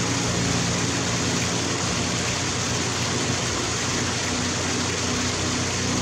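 Small waterfall cascading over a rock ledge into a pool: a steady, even rush of water.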